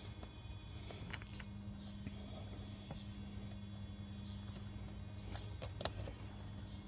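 Faint scattered clicks and light taps, the sharpest a little before the end, over a steady low hum with a faint low drone that comes in about a second in and fades out around five seconds.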